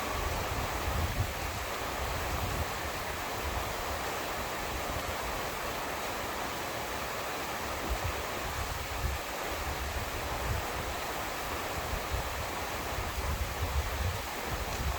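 Steady rain falling, an even hiss, with a low rumbling underneath that comes and goes.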